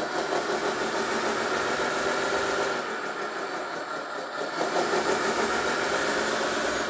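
1/14-scale RC hydraulic dozer's electronic sound unit playing a simulated diesel engine through its speaker, revving up as the tracks are driven by the joystick. It eases off about three seconds in and picks up again near five seconds.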